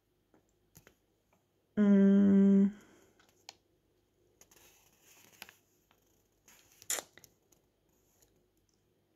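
A woman's brief hum held on one pitch for about a second, near two seconds in, while she thinks; then faint rustling and crinkling of a paper till receipt being handled and looked over, with a sharper crinkle about seven seconds in.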